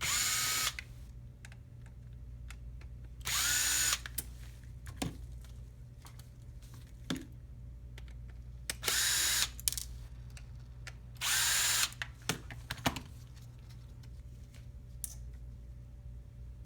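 Power screwdriver run in four short bursts, each under a second, backing out four small screws, with light clicks and taps of handling between the bursts.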